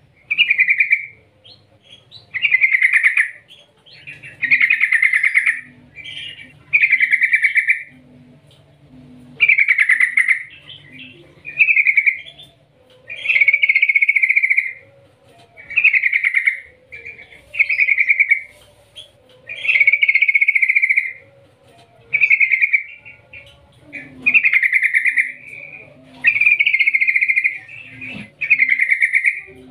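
Yellow-vented bulbul (trucukan) singing: short, rapidly trilled phrases about a second long, repeated every one and a half to two seconds.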